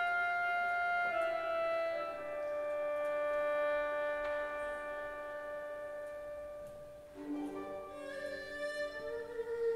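Chinese traditional orchestra with erhu solo playing a slow, lyrical passage: long held notes in a single melody line step downward and fade about seven seconds in, then a new phrase starts with sliding notes.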